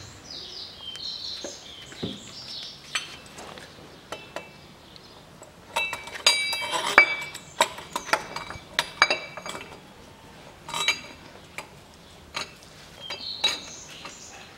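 Steel parts of a homemade press-out tool (mandrel cup, threaded rod, washers and nuts) clinking and clicking as they are fitted by hand onto the engine mount. The clinks come at irregular intervals, are busiest about six to nine seconds in, and some ring briefly.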